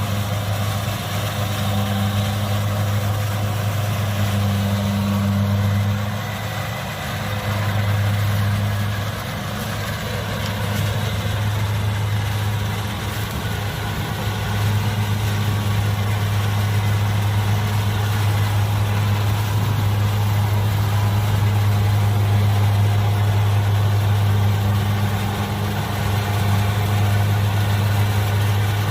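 Kubota DC70 combine harvester's diesel engine running steadily under harvesting work, a deep even hum that eases briefly about a quarter of the way through.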